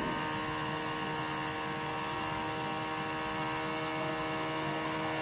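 Homemade battery vacuum cleaner's small 3.5-volt DC motor spinning its propeller fan, running with a steady hum as it draws in small bits of rubbish.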